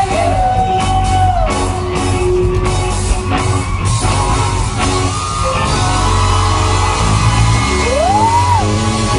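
Pop-soul song played by a live band with drums, bass and guitar. Female singers hold long notes that slide up and down in pitch, one at the start and another near the end.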